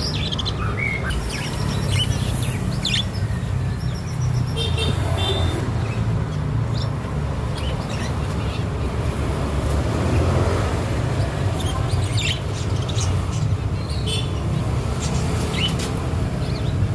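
Budgerigars, red-eyed local parakeets, chirping in short scattered calls over a steady low rumble.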